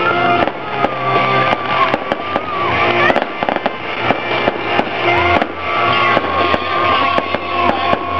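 Music with a held melody line over a steady bass, with aerial fireworks popping and crackling sharply throughout.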